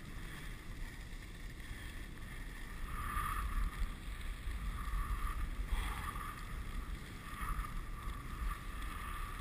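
Dog sled gliding along a snow trail: a steady hiss of the runners on snow, with wind rumbling on the microphone.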